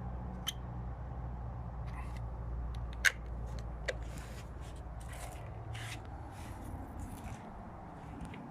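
Extension cord and plug being handled: scattered light clicks and scrapes over a low rumble, with one sharper click about three seconds in.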